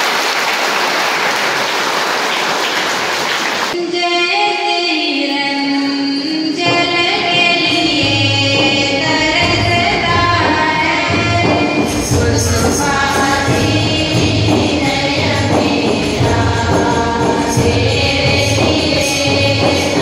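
The congregation applauds for about four seconds. Then a group starts singing a church wedding song. A steady drum beat comes in about eight seconds in, and a jingling percussion about twelve seconds in.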